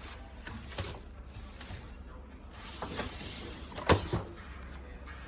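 A short sliding, rustling noise, then two sharp knocks about a quarter second apart, the first the louder.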